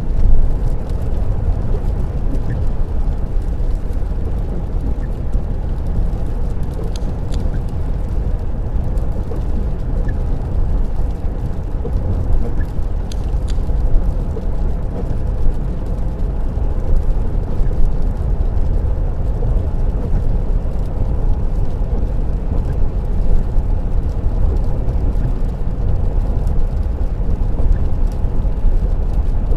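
Car interior road noise at dual-carriageway speed on a wet road: a steady low rumble of tyres and engine heard from inside the cabin.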